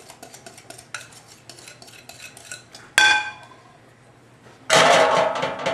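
A metal utensil scrapes and taps wet batter out of one mixing bowl into another, making many light clicks. About three seconds in there is one sharp clink that rings briefly. Near the end comes a louder, rapid clattering of a whisk or utensil working against the bowl.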